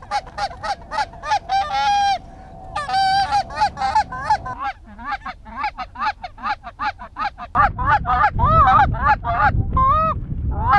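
Goose honking: a fast run of short honks and clucks, about four a second, with a couple of longer drawn-out honks around two and three seconds in. From about eight seconds in the honks come louder and higher.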